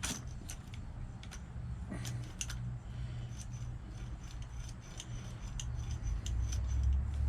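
Light metallic clicks and taps, scattered irregularly, as a bicycle brake lever and its small parts are handled and test-fitted on the handlebar.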